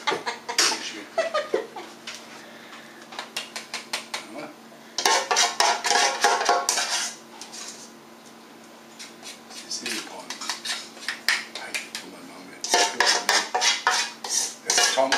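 Metal spoon scraping and clinking against a stainless steel mixing bowl as liver sausage filling is scooped into a metal funnel. It comes in runs of quick strokes with short pauses between them, the loudest run about five to seven seconds in.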